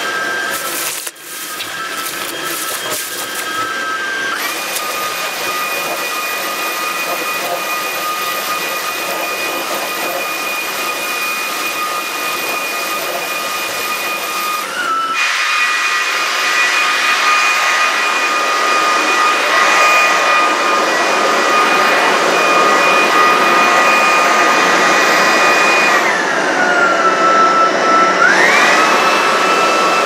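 Cecotec Conga Rockstar 10000 Nebula cordless stick vacuum running over a carpet mat: a steady motor whine over the brush noise. The whine steps up in pitch about four seconds in, slides down near the end and climbs again, as the suction shifts between the Auto and Turbo settings on heavy dirt.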